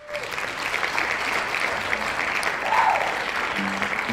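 Club audience clapping and cheering, with one voice whooping above the crowd about three seconds in. Near the end the band's electric guitar and bass begin playing their first low notes.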